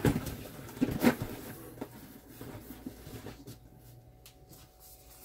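Objects being rummaged and handled: a knock right at the start and another about a second in, a few lighter knocks, then quieter rustling.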